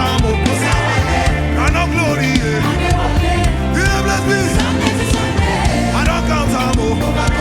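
Afro gospel music with a heavy bass line and a singing voice over the band.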